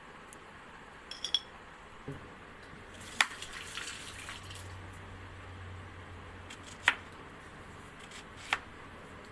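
Kitchen knife cutting a lime on a cutting board: several sharp taps of the blade on the board a second or two apart, with a brief stretch of light scraping between them.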